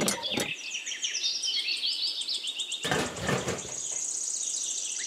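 Small birds chirping, with a run of quick high chirps that settles into a steady high trill near the end. Two brief handling noises stand out, one at the start and one about three seconds in.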